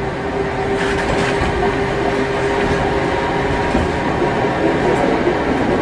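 Nagasaki Electric Tramway streetcar running along its track, heard from inside the car: a steady rumble of wheels on rail with a steady whine that fades out about two-thirds of the way through.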